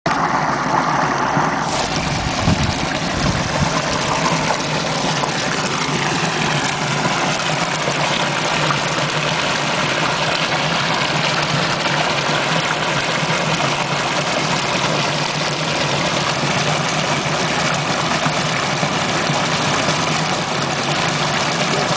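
Foaming water pumped out of a concrete outfall, pouring and churning into the waterway in a steady, loud rush.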